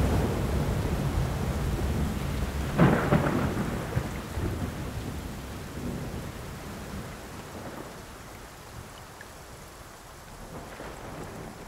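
Thunderstorm sound: rain with rumbling thunder, a louder crash about three seconds in, then the whole sound slowly fades.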